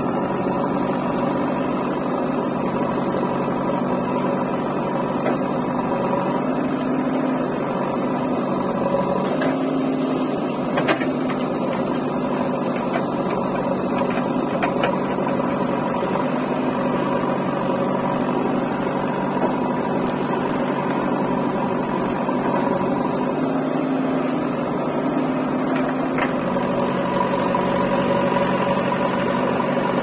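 JCB 3DX backhoe loader's diesel engine running steadily as the machine manoeuvres, its note shifting briefly about ten seconds in and again a little past twenty seconds.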